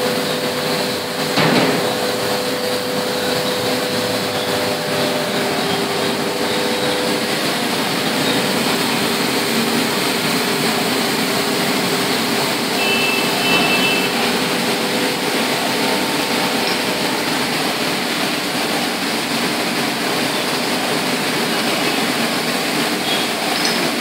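Semi-automatic glass bottle washing machine running: a steady mechanical noise with a constant hum, and a single knock about a second and a half in.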